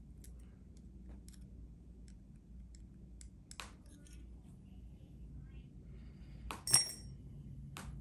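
Small metal lock pins from a padlock's core being handled and set down, giving light ticks and clicks, with one sharper clink that rings briefly about two-thirds of the way through.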